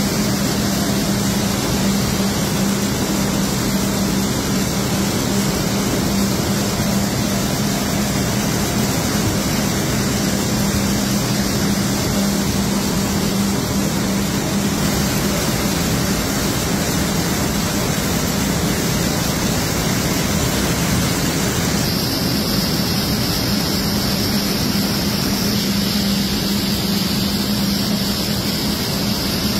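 Jute mill machinery running: a loud, steady wash of machine noise from the sliver-processing frames, with a constant low hum underneath. The high hiss shifts slightly about three-quarters of the way through.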